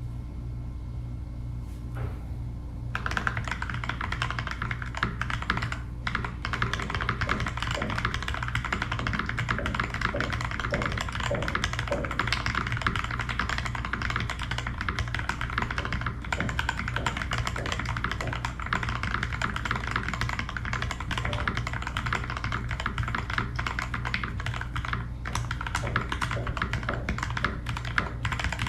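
Typing on a GK61XS mechanical keyboard with lubed and filmed KS-3 Gateron Yellow linear switches, DSA keycaps and no case foam. It is a fast, continuous run of clacky keystrokes that starts about three seconds in, over a steady low hum.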